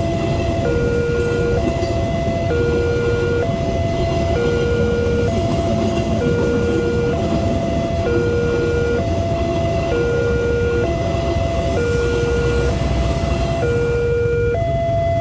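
Railway level-crossing alarm sounding from the loudspeaker on the crossing post: an electronic two-tone chime, a low tone and a higher tone alternating about once a second, without a break. Under it runs the steady rumble of a passenger train's coaches rolling past close by.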